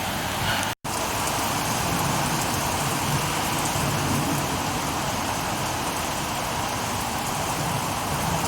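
Heavy rain and gusting wind of a severe thunderstorm, a steady rushing hiss. The sound cuts out for an instant just under a second in, then carries on.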